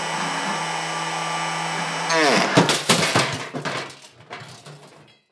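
Bosch 1617 router motor, used as the spindle of a DIY CNC router, running steadily at speed. About two seconds in it gives way abruptly to a short run of falling sweeps and sharp hits that fade away.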